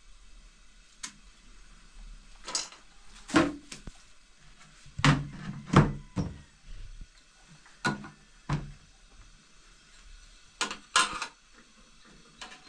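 A series of irregular knocks and thuds, about ten spread over several seconds, with a close cluster near the end.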